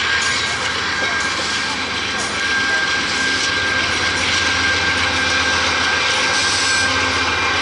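Norfolk Southern freight train rolling past close by behind its diesel locomotive: steady engine rumble and wheel-on-rail noise, a little louder about two and a half seconds in, with a thin steady high squeal running through it.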